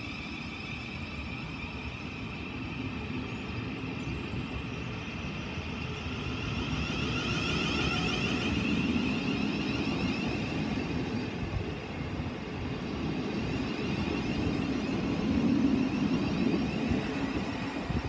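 Thameslink Class 700 electric multiple unit pulling out of the platform. Its traction equipment gives a steady high-pitched whine of several tones over the low rumble of wheels on the rails, and the sound swells louder as the carriages pass.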